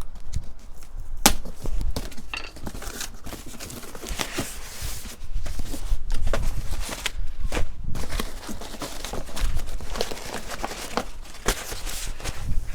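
A cardboard parts box and its packaging being handled and unpacked: rustling and crinkling with scattered knocks and clicks.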